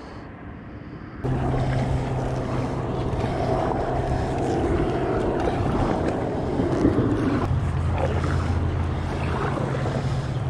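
A boat motor running steadily, its hum dropping to a lower pitch about six seconds after it starts, with wind noise on the microphone. It cuts in suddenly about a second in.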